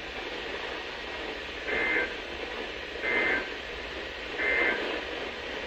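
Three short warbling two-tone data bursts, about a second and a half apart, over steady radio hiss: the EAS/SAME digital end-of-message code that closes an emergency alert broadcast.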